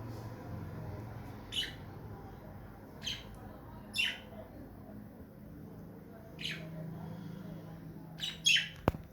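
Budgerigar giving short, harsh chirps every second or two, with two close together near the end, followed by a single sharp click.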